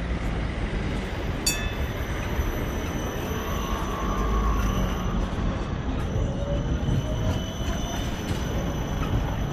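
Škoda low-floor electric tram pulling away from a stop and passing close by, with a steady low rumble. Its motors give a faint rising whine as it gathers speed. A brief sharp high click comes about a second and a half in.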